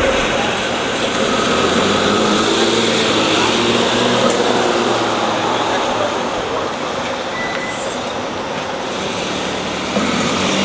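Cummins ISL9 diesel engine of a NovaBus LFS articulated city bus running as the bus pulls away down the street, a steady drone mixed with passing car traffic.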